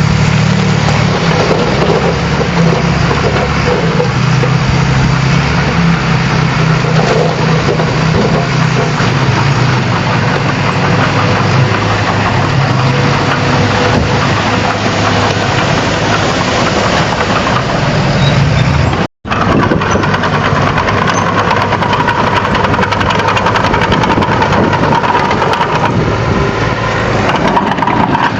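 Bulldozer's diesel engine running steadily as the machine works, with a wide noisy hiss over it. The sound cuts out for a split second about two-thirds of the way through, then carries on.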